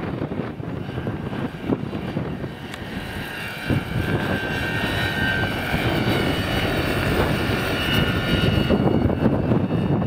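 Rotor and electric Kontronik drive of a large Vario Schweizer 300C model helicopter with a 2.2 m rotor, flying close: a dense whirring rotor sound with a steady high motor-and-gear whine. The whine comes in about three seconds in, and the sound grows louder toward the end as the helicopter nears.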